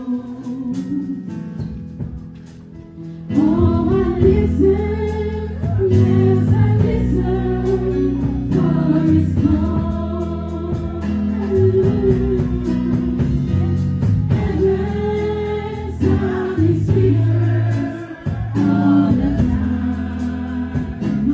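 A woman singing a gospel song into a handheld microphone over a backing track of held bass and keyboard-like notes; the voice comes in strongly about three seconds in.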